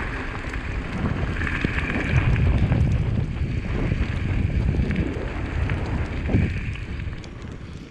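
Wind buffeting the microphone during a mountain-bike ride: a heavy low rumble, with a faint high steady whine through the middle.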